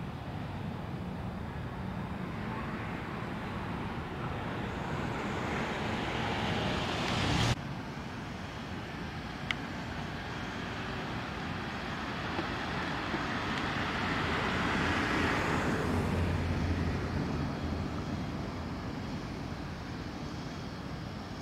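Distant vehicle noise: one vehicle swells and cuts off suddenly about seven seconds in, then another rises and fades away around the middle.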